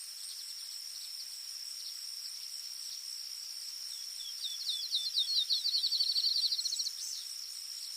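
A steady high insect trill, like crickets, runs throughout. About halfway through, a songbird sings a series of quick chirps that speed up into a rapid trill lasting a couple of seconds.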